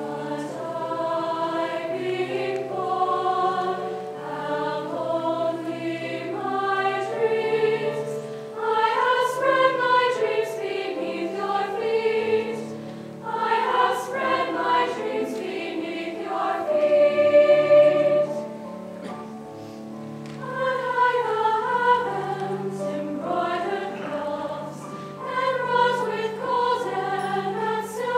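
A girls' choir singing a slow piece in several parts, held chords moving in phrases that swell and fall back.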